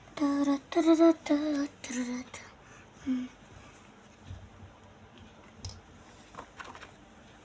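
A person humming a short run of notes, several short wavering tones in the first three seconds, followed by quiet with a few faint clicks.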